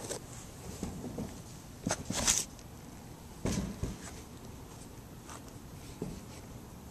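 Handling noise: rustling and scraping as the shoe is moved about on a metal mesh surface and the camera is handled, with two louder scrapes about two and three and a half seconds in and a few small clicks after.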